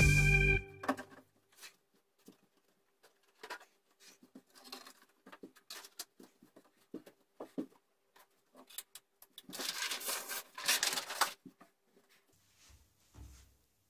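Background music cutting off within the first second, then scattered clicks, knocks and rustling of model railway pieces and packaging being handled and packed away, with a louder burst of rustling about ten seconds in.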